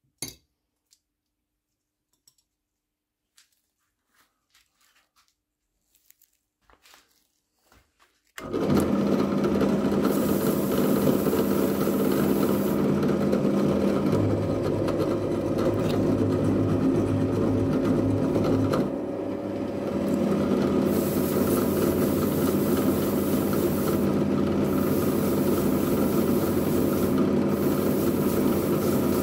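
Near silence with a few faint handling clicks, then about eight seconds in a drill press starts and runs steadily, spinning a toilet brush that polishes an oiled tool handle pressed against it. The level dips briefly a little past halfway.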